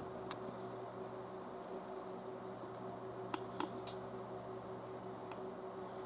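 Desktop PC running after boot, its fans giving a steady low hum. A few light clicks sound over it: two near the start, three in quick succession about three and a half seconds in, and one more past five seconds.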